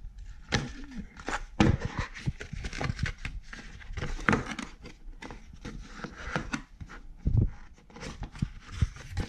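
Cardboard mailer being opened and handled by hand: irregular rustling and scraping of cardboard, with sharp knocks and taps against the desk.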